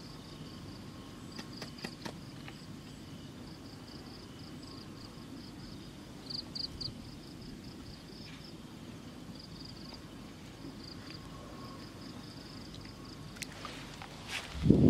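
Insects chirping in a rapid, steady pulsing trill over a low rumble of outdoor ambience. Near the end a loud rumbling noise hits the microphone as it is moved.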